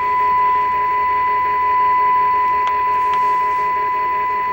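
Steady 1 kHz test tone, with a hiss beneath it, from the TV's speaker: the audio on the Sencore VG91 video generator's channel 3 signal, heard now that the set's tuner has locked onto it.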